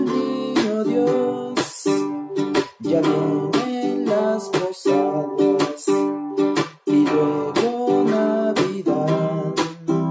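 A man singing a Christmas song while strumming a pear-shaped, many-stringed acoustic string instrument in a regular rhythm.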